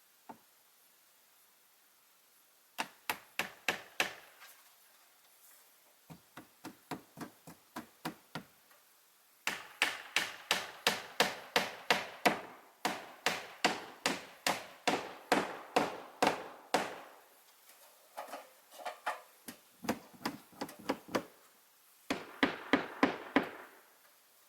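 Hammer striking wood in quick runs of about three blows a second, in five bursts with short pauses between, the longest lasting about seven seconds.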